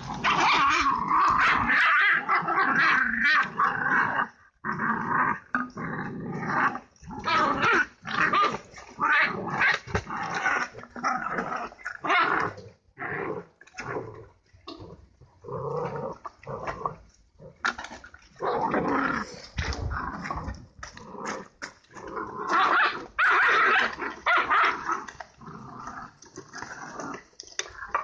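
Two young dogs fighting, growling and snarling at each other in a near-continuous string of loud bursts, with a few short lulls.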